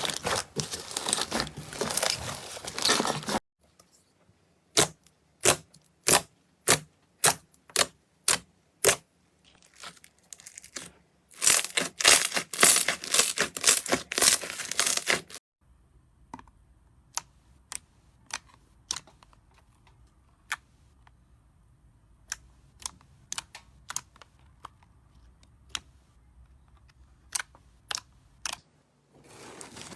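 Slime being pressed and squeezed close to the microphone, making crunchy, crackling sounds. Dense crackling runs for the first few seconds and again in a spell midway. In between come single sharp pops about twice a second, and sparser, fainter clicks follow in the second half.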